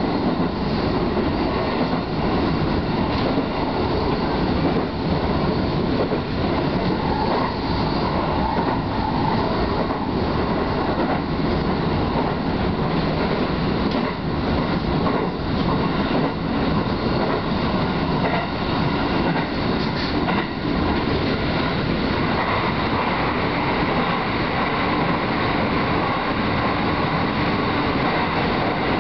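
Electric commuter train running at speed, heard from inside at the front of the train: a steady rumble of wheels and running gear with scattered faint ticks. It runs into a tunnel in the later part.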